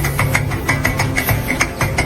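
Background music with a quick steady beat of about six clicks a second over short high notes and a pulsing bass line.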